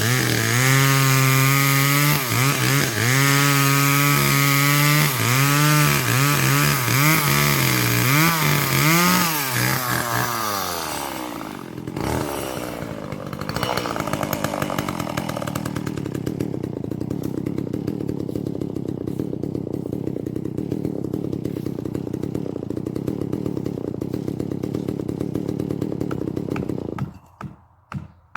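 Chainsaw cutting poplar wood, its engine pitch wavering as the chain bogs and recovers in the cut. About ten seconds in, the engine winds down and settles to a steady idle, then cuts off shortly before the end, followed by a few sharp knocks.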